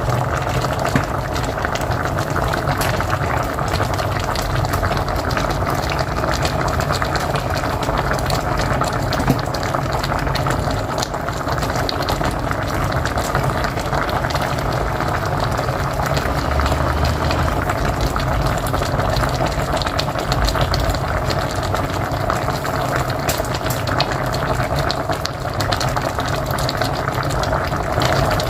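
A pot of mocotó (beef feet) boiling on a wood-fired stove, the liquid bubbling and popping steadily.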